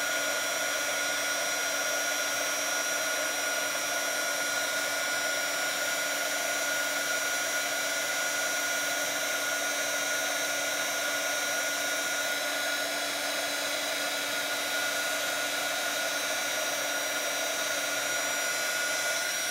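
Handheld embossing heat tool blowing hot air, its fan motor running with a steady whine, to melt gold embossing powder on stamped cardstock.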